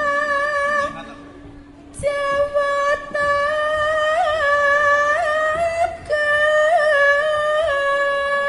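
Javanese sinden singing solo through a microphone: long held notes with a slow vibrato and small ornamental turns, pausing for about a second near the start.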